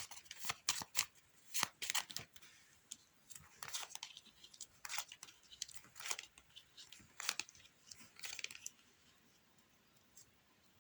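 Playing cards being handled: an irregular run of short flicks and snaps as the deck is shuffled and cards are laid out. It stops about two seconds before the end.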